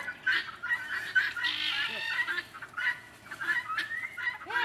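A flock of chickens clucking and squawking, with many short calls overlapping one another.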